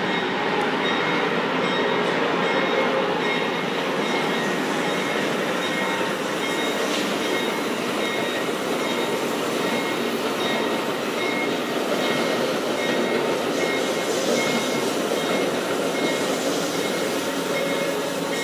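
Amtrak passenger trains rolling past on the tracks: a steady rush of wheel and rail noise, with a faint high tone repeating on and off about once a second.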